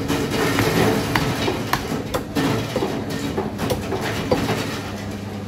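Butcher's cleaver chopping goat meat on a wooden stump block, a series of knocks roughly one or two a second over a steady background din.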